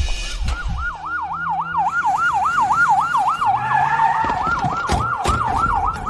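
Police car siren in a fast yelp, its pitch sweeping up and down about four times a second. A second siren overlaps it around the middle, and two sharp knocks come near the end.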